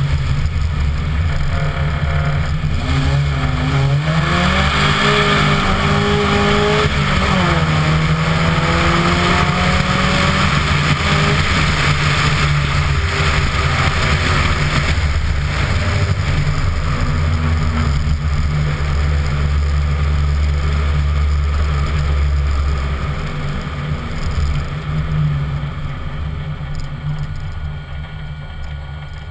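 Vauxhall race car's engine running hard on track, its pitch climbing and dropping as it revs through the gears a few seconds in. It then eases off and grows quieter over the last several seconds as the car slows, heard from a camera mounted on the car's flank.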